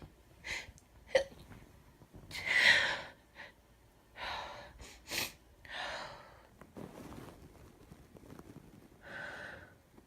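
A sick woman sneezing and coughing in short sudden bursts, the loudest about two and a half seconds in, with sharp catches of breath and softer sniffles and breaths between them.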